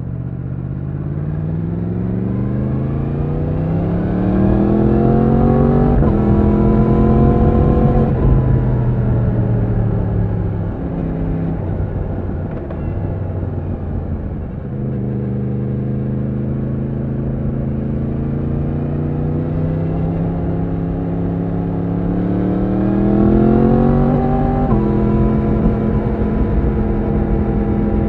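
2020 Yamaha MT-10's crossplane inline-four engine heard from the rider's seat, rising in pitch under acceleration and then dropping suddenly as it shifts up on the quickshifter about six seconds in. The throttle then eases and the engine settles to a lower, steady note, before rising again and making another sudden quickshift upshift near the end.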